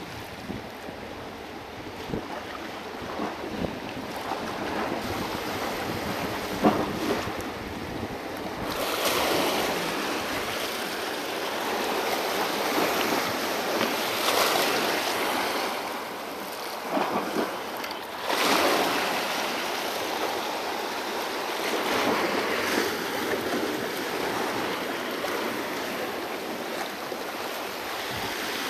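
Small harbour swells washing and sloshing over shoreline rocks, surging every few seconds, with a sharp tap about seven seconds in.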